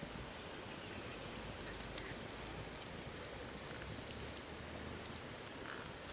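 Wood embers of an open cooking fire crackling: a steady hiss with scattered small pops.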